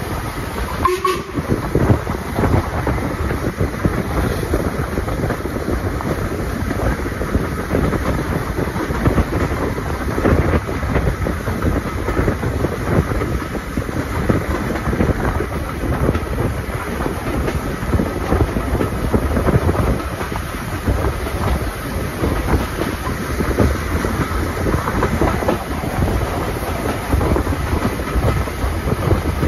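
A steam-hauled passenger train running along the line, heard from a carriage window: a steady rumble of wheels on rail, with many short clicks and knocks from the running gear and rail joints.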